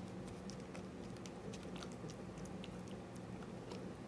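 Wooden stick stirring and pressing a rubber-banded handkerchief in a cup of gardenia dye water: faint, irregular wet squishing and small clicks.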